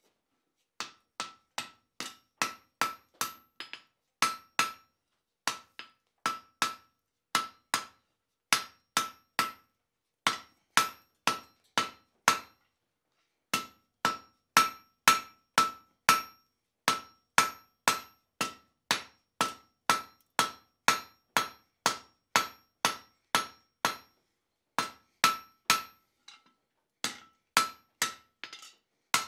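Hand-forged cross-peen hammer made from 1912 train rail striking a red-hot steel bar on an anvil. The blows come steadily, about two a second, each with a bright metallic ring. There is a short pause about twelve seconds in.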